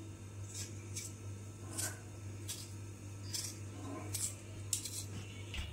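Knife cutting through red bell pepper held in the hand: about eight short, crisp cuts, roughly one each half second to second.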